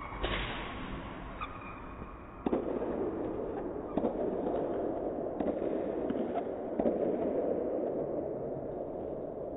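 A string of sharp bangs, about six over several seconds, that echo; from about two and a half seconds in a steady rushing noise sits under them.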